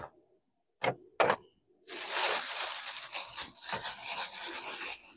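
A few short knocks, then a plastic bag crinkling and rustling from about two seconds in as it is gathered up and handled by hand.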